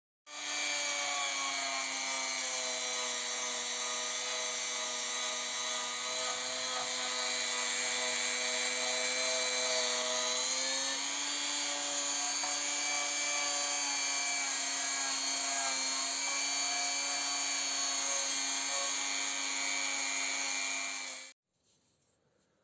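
An electric power tool running steadily with a motor whine over a heavy hiss, its pitch stepping up slightly about halfway; it starts suddenly and cuts off abruptly near the end.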